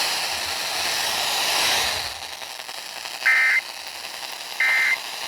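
Hiss of an FM radio broadcast for about two seconds, then two short, identical electronic data bursts a little over a second apart: the Emergency Alert System end-of-message code bursts that close the warning.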